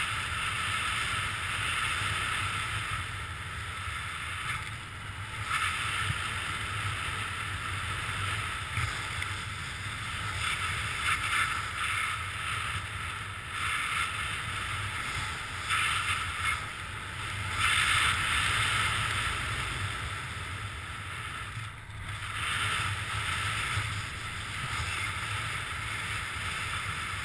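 Wind rushing over a skydiver's helmet-camera microphone during the parachute descent, a steady rush that swells and eases every few seconds.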